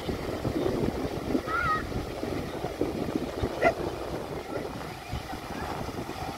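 Surf washing onto a sandy beach, with wind buffeting the microphone. Two brief high calls stand out over the surf, one about a second and a half in and another a little past halfway.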